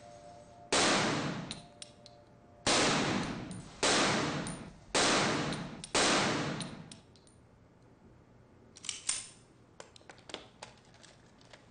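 Five pistol shots, the first alone and the last four in quick succession about a second apart, each with a long echoing tail in an indoor firing range. Faint light clicks follow near the end.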